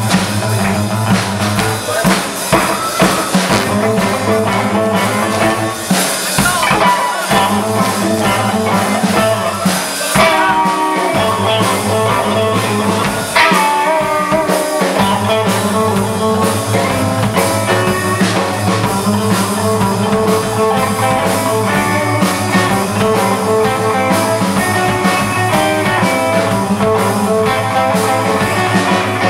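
Live rockabilly band playing: Telecaster-style electric guitar, electric bass and drum kit.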